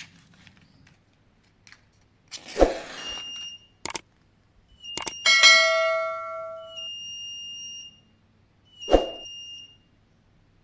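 Active buzzer module of a DIY flame-sensor fire alarm sounding a steady high-pitched beep in three bursts, set off by a flame at the sensor. Two short rushing noises come just before the first and last beeps, and a ringing metallic clang about five seconds in is the loudest sound.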